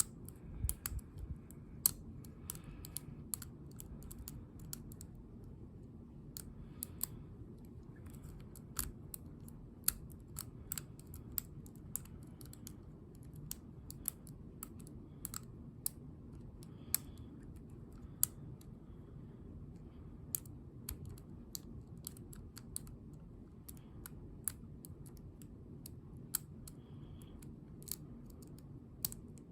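Irregular small sharp metallic clicks and taps, dozens of them, from lock-picking tools working a Ruko ASSA Abloy lock, over a steady low hum.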